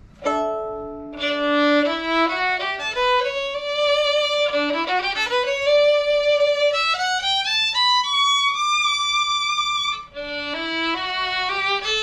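Solo violin played with the bow: a held two-note chord, then runs of notes climbing in pitch, starting again from low several times, with a brief break about ten seconds in.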